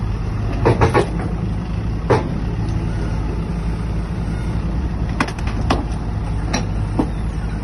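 Heavy construction machine's diesel engine running steadily, with a string of sharp knocks and clanks at irregular intervals, a cluster of them about a second in and more later on.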